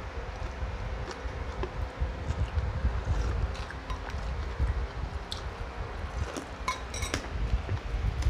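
Eating at a table with bare hands: quiet chewing and small mouth and hand sounds, with a few sharp clinks of dishes about five to seven seconds in, over a steady low rumble and faint hum.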